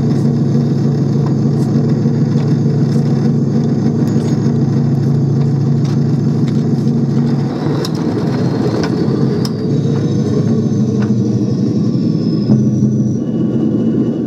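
Miniature-railway locomotive in BR blue Class 20 outline, its motor running with a steady low drone, with sharp clicks from the wheels passing over rail joints and pointwork. The steady drone weakens and breaks up about halfway through.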